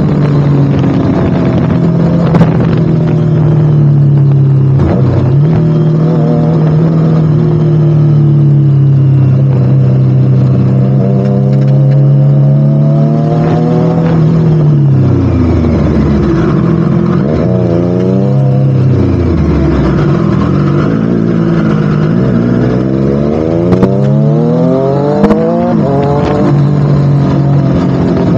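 Triumph Street Triple RS inline three-cylinder engine running through a Spark slip-on exhaust. It holds a steady pitch for a long stretch, falls away sharply about halfway through, then winds up again in rising sweeps near the end.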